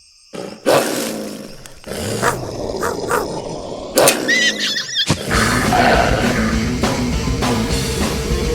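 Cartoon soundtrack: music mixed with animal roaring and growling sound effects, starting suddenly out of near silence about a second in and growling louder and busier from about five seconds in.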